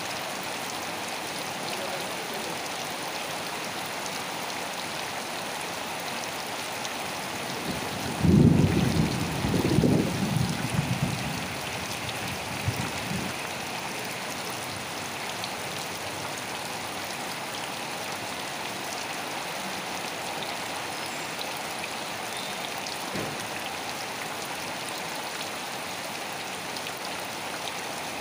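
Steady rain falling. About eight seconds in, a louder low rumble of several pulses rises over it for about three seconds, then fades back into the rain.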